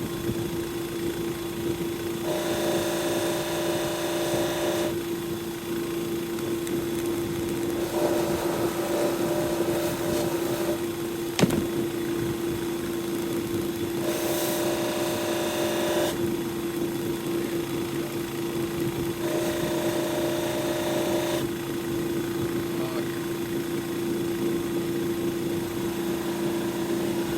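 Bench buffing wheel running with a steady motor hum. Four times for a couple of seconds each, a brighter rushing sound joins it as the guitar's finish is held lightly against the wheel. There is a single click near the middle.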